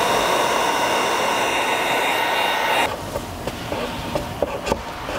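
Electric heat gun running, a steady blowing hiss with a fan-motor whine, heating vinyl chrome-delete film to smooth out its wrinkles. It cuts off about three seconds in, leaving a few faint taps.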